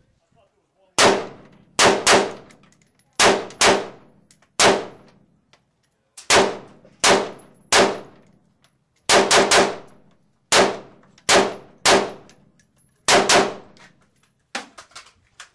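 AR-15-style carbine shots fired in quick strings of one to three, about seventeen in all, each report with a short ringing tail.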